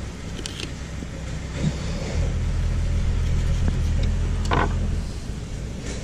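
A low, steady motor rumble that grows louder about two seconds in and eases near five seconds, with a few short scrapes from a fillet knife cutting a pompano fillet from its skin on a cutting board.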